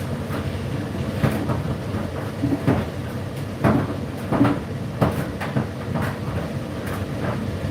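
Indesit IDC8T3 condenser tumble dryer running, its drum turning with a steady rumble while the load tumbles inside, giving irregular knocks and clicks.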